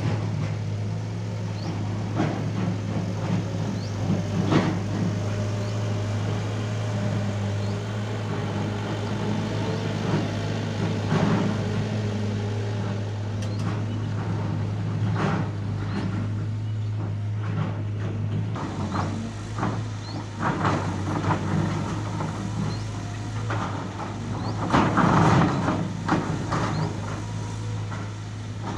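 Excavator's diesel engine running steadily, with repeated knocks and clatter from bucket work and soil being loaded; the loudest cluster of knocks comes near the end.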